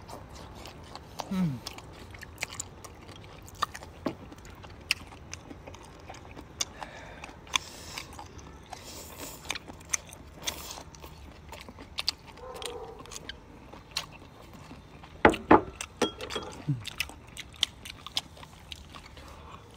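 Biting and chewing crispy squid tentacles close to the microphone: irregular crunches and mouth clicks, with a louder cluster of crunches about three quarters of the way through.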